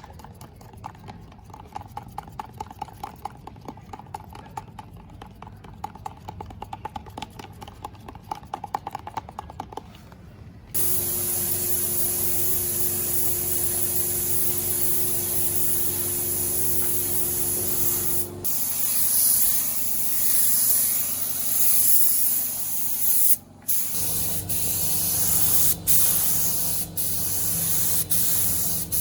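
Spray gun hissing steadily, starting suddenly about a third of the way in, with a short break and a few brief interruptions near the end. Before it, faint dense crackling.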